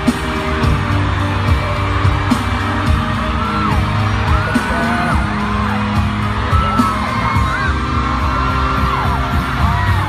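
Loud live pop music from an arena concert, with the audience screaming and cheering over it in high, wavering voices.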